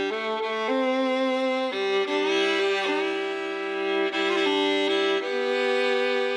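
Background music: a fiddle playing a slow melody of long held notes over sustained chords.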